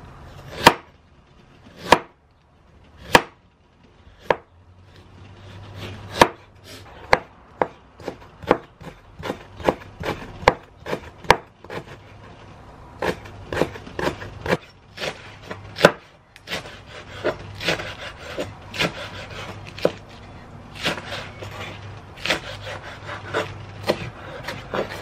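Chef's knife slicing and chopping ginger, then spring onion, on a plastic cutting board. It starts with a few single knocks about a second apart, then runs of quicker chopping at several strokes a second.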